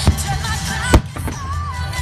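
Aerial firework shells bursting with two sharp bangs about a second apart, over continuous music with a steady bass and a gliding melody.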